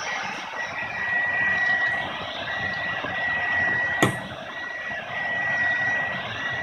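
Handheld hair dryer running steadily, a rush of air under a high, even motor whine, drying freshly applied latex colour on a leather seat. A single sharp click about four seconds in.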